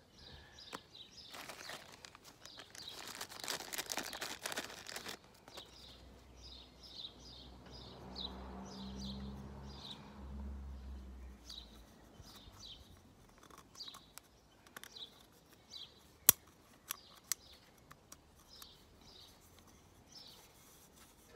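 A thin plastic packet crinkling as it is opened, then small birds chirping over and over. A low vehicle rumble swells and fades midway, and a few sharp plastic clicks come about two-thirds of the way through, the loudest sound here.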